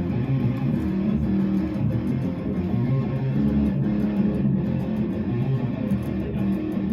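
Amplified guitar played continuously for a sound-check level test, a run of strummed and picked notes with no vocals.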